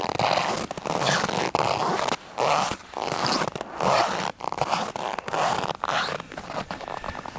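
Footsteps on cold snow, each step a crunch, at a steady walking pace of about two steps a second.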